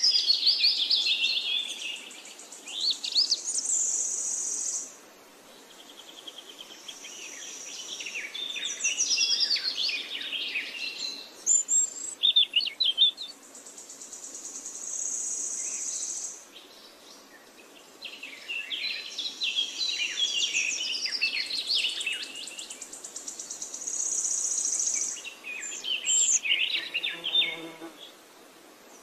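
Songbirds chirping and singing in repeated phrases of quick high notes, broken by high, thin buzzing trills lasting a second or two.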